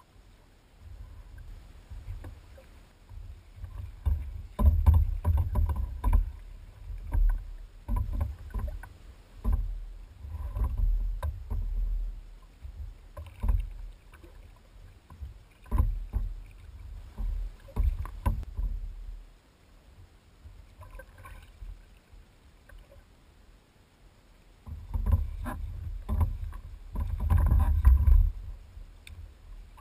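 Water slapping and sloshing against a sea kayak's hull in an open-ocean swell, with irregular low rumbling surges and sharp little knocks that come and go, busiest in the first half and again near the end.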